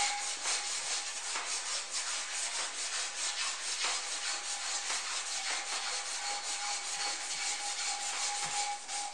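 Quick back-and-forth hand sanding of the sculpture's metal support rod with an abrasive strip, a steady scratchy rubbing of several strokes a second, polishing the metal back to a shine.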